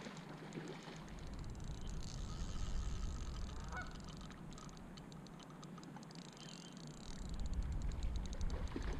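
Geese honking a few times, over wind rumbling on the microphone.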